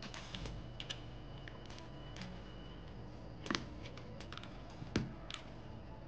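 Mechanical keyboard keys with Outemu black switches being pressed one at a time: a scattering of separate clacks, the loudest about three and a half and five seconds in.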